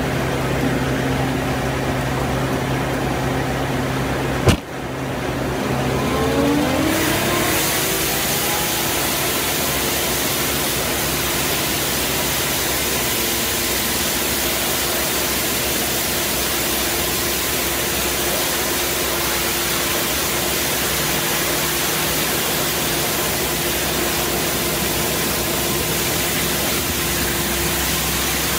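Compact street sweeper running, its engine humming while the rotating side brush scrubs along the kerb with a steady hiss. A sharp click about four seconds in, then a whine rising in pitch that settles into a steady hum.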